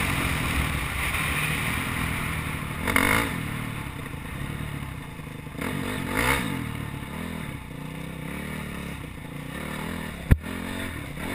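Honda CRF four-stroke single-cylinder dirt bike engine slowing from speed, with wind on the helmet microphone fading as it comes down to low revs. Two short throttle blips, about three and six seconds in, and one sharp knock near the end.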